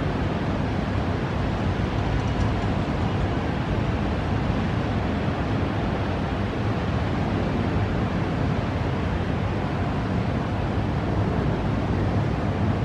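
Steady rushing noise of a thunderstorm: wind and rain, even and unbroken, heaviest in the low end.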